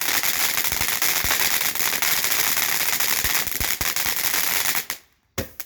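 Pyro Predator 'Jigsaw' fountain firework spraying with a dense, rapid crackle of small pops. About five seconds in it drops out abruptly, with one last short burst of crackle.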